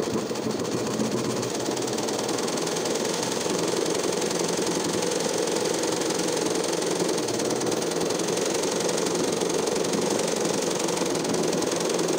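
Sewing machine running steadily at speed, stitching a narrow zigzag satin-stitch fill for embroidery.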